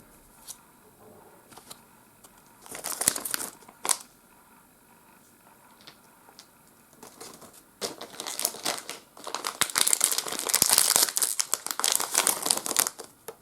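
Foil wrapper of a trading-card booster pack crinkling and tearing as it is handled and opened: a short burst about three seconds in, then dense crinkling through the second half.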